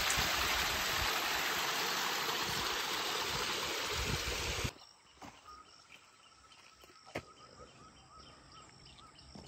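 A loud, steady rushing noise with low thumps beneath it cuts off abruptly about halfway through. It leaves quiet outdoor ambience with faint, repeated high chirping and one short click.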